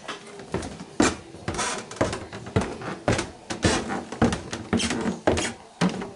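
Footsteps, about two a second, of a person walking at a steady pace.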